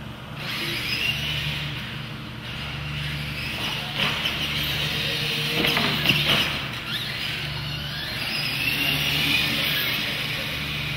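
Radio-controlled monster trucks racing on a concrete floor: electric motors whining, rising and falling in pitch with the throttle. Sharp knocks come about four and six seconds in as a truck lands off a ramp.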